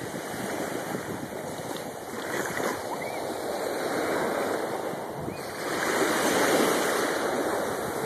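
Small sea waves washing up over the sand and back at the shoreline, the wash swelling louder twice, most strongly about two-thirds of the way through.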